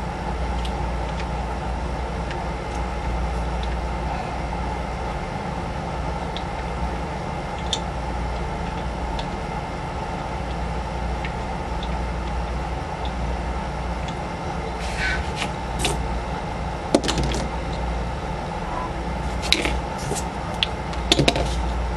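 Plastic pieces of a dollar-store 3x3 puzzle cube clicking and snapping as they are fitted back together, in scattered sharp clicks that come thicker in the second half, over a steady low background hum.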